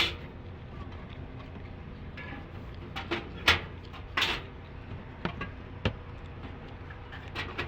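Soda cans knocking and clunking as they are loaded by hand into the columns of a drink vending machine: several separate sharp knocks, spaced irregularly.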